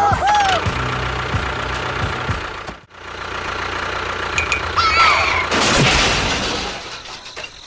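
Steady engine-like running of a miniature DIY tractor, with short sliding tones near the start and again about five seconds in, and a sudden brief break near three seconds.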